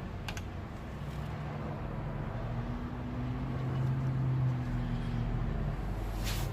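A motor vehicle engine running with a low hum that rises and grows louder through the middle, then eases, with a couple of light clicks.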